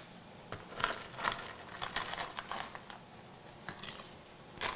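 Ice cubes scooped from a glass bowl and dropped into a stemmed glass of punch: a scattered run of light clinks and rattles.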